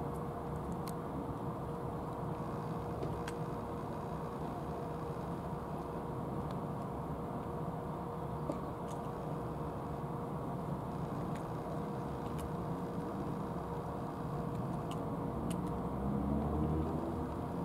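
Steady low outdoor rumble with a constant faint hum and a few soft ticks, swelling a little near the end.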